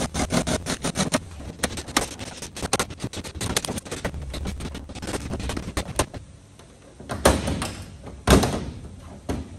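Cordless drill working on thin riveted aluminium aircraft skin, giving way to a run of irregular metallic clicks and taps. Near the end come two louder hollow thunks of the aluminium sheet, about a second apart.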